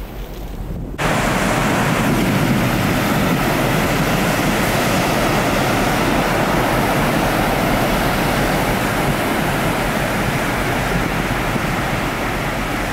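Surf breaking and washing over a rocky shoreline, a steady rush of water that comes in abruptly about a second in.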